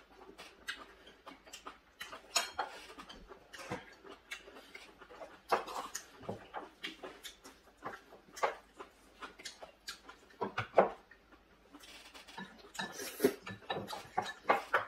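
Eating sounds: chewing and lip-smacking with short, irregular clicks of chopsticks and a spoon against bowls.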